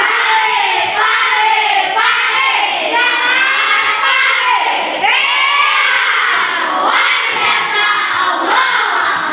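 A class of primary-school children shouting and chanting together in unison, many young voices at once.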